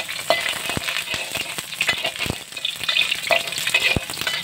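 Minced garlic sizzling in hot oil in a wok, stirred with a metal spatula that knocks and scrapes against the pan several times.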